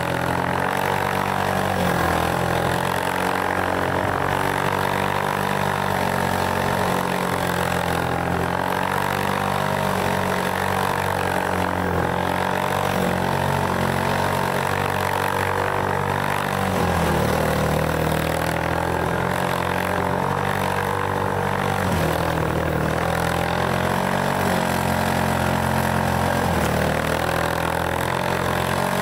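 An all-terrain vehicle's engine running steadily under load, its revs rising and falling in steps several times.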